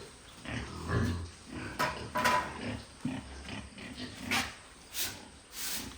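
Pigs grunting at intervals, with a few short, sharp sounds over the grunts.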